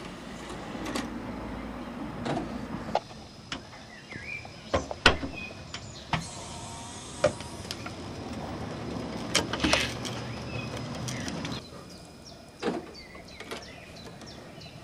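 A hydraulic floor jack is worked and a car's tyre settles onto a CD-ROM drive, giving scattered metallic clicks and knocks over a mechanical rattle. The sharpest knock comes about five seconds in.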